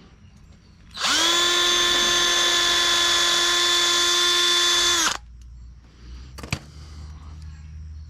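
A power drill spins up and runs at a steady high whine for about four seconds, then stops abruptly, widening a screw hole so a larger screw will fit. A single sharp click follows a little later.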